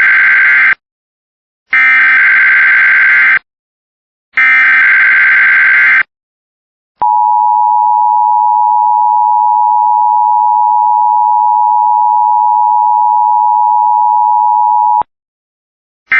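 Emergency Alert System test tones. First come bursts of warbling digital SAME header data, the end of one burst and then two more of about a second and a half each, with short gaps between. Then comes the steady two-tone EAS attention signal for about eight seconds, cutting off abruptly, and a short end-of-message data burst begins right at the end.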